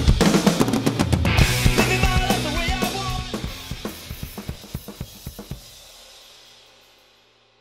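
Rock drum kit played along to a punk rock track, snare and bass drum hitting through the song's last bars. The strokes stop a little past halfway and the music fades away to near silence.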